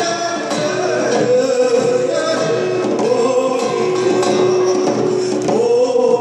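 Man singing a Korean traditional song, his voice wavering up and down in long held notes over a steady sustained tone, with a few light drum taps.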